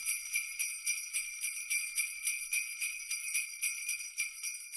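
Jingle bells shaken in an even rhythm, about three shakes a second, making a high jingling.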